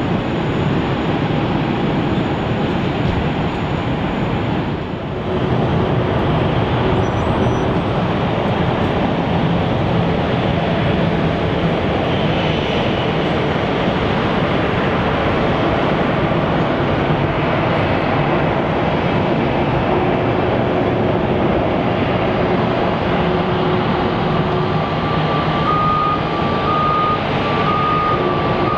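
Aircraft engines running with a steady loud noise that dips briefly about five seconds in. Short repeated beeps sound near the end.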